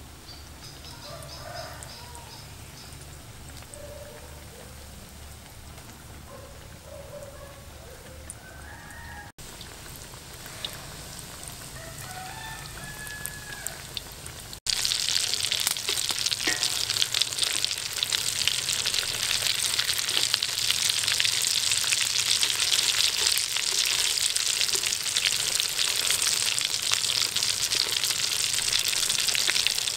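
Egg kabab cakes deep-frying in hot oil in a wok: a quiet sizzle at first, then a loud, dense crackling sizzle from about halfway through.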